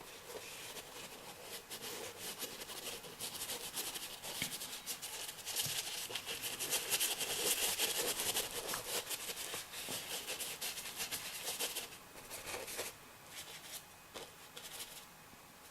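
Paintbrush strokes rubbing and scrubbing on a painting: a dry, scratchy rasp of many quick strokes, busiest in the middle and thinning out near the end.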